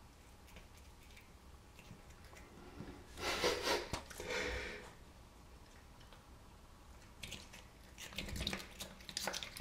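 Bengal cat mouthing and chewing at a small bug on a bathtub floor: brief, faint chewing and lip-smacking noises in two bouts, starting about three seconds in and again past seven seconds.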